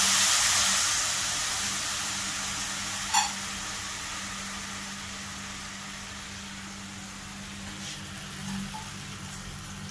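Tamarind water just poured into hot oil and tempered spices in a kadai, sizzling and hissing, the sizzle dying down gradually as it settles toward a simmer. A single short clink about three seconds in.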